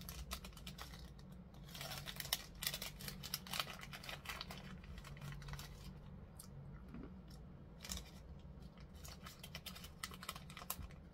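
A small snack pouch crinkling and crackling in the hands as it is pulled open and handled: a dense run of small, crisp clicks, fainter after about six seconds in.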